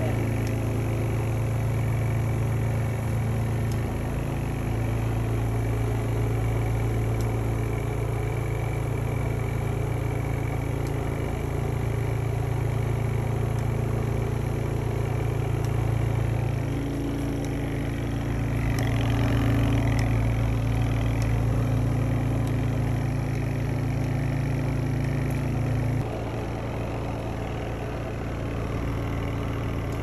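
Spin dryer of a Kuppet 26 lb portable washing machine spinning a load of towels: a steady motor hum that steps down slightly in level near the end.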